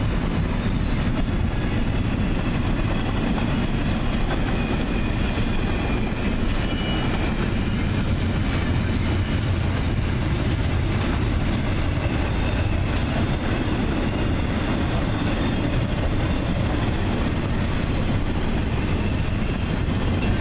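Double-stack container train on well cars rolling past close by at speed: a steady, loud rumble of steel wheels on the rails with clickety-clack from the rail joints.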